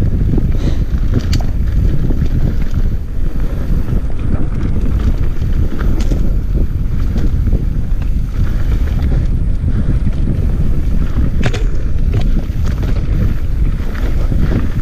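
Wind buffeting the action camera's microphone during a fast mountain-bike descent on a dirt trail, over a steady rumble of tyres on the ground. A few sharp clicks and rattles from the bike come through, one about a second in, one near the middle and one near the end.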